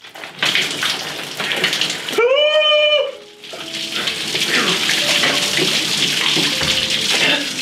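Milk pouring from a plastic gallon jug onto a man's head and splashing down over his body into a shower tub. About two seconds in, a short wordless yell rises and holds for under a second.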